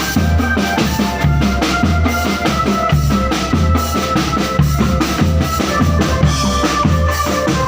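Marching drum band playing: busy snare and bass-drum drumming in a steady rhythm under a sustained melodic line.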